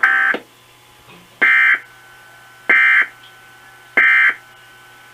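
Emergency Alert System end-of-message (EOM) SAME data bursts: four short, harsh digital bursts of tone, about a second and a half apart, that close the broadcast alert.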